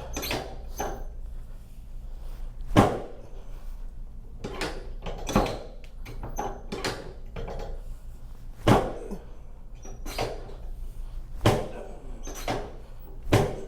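Chiropractic adjustments worked up the lower back from the lumbar spine towards the lower thoracic spine: a series of sharp knocks and cracks, one every second or so, the loudest about three seconds in.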